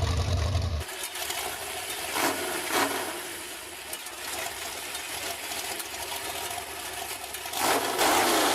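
Chainsaw engines running across abrupt cuts: a deep steady hum breaks off about a second in, then a quieter, noisier running sound with two sharp knocks about two and three seconds in, then a louder engine near the end.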